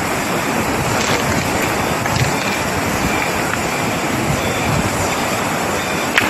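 River water rushing steadily, a continuous even noise.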